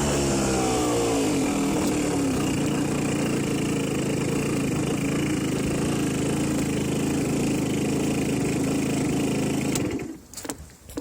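Aprilia Ditech scooter's two-stroke engine, its revs falling over the first two seconds and then running at a steady speed, until it stops suddenly about ten seconds in, followed by a couple of sharp clicks.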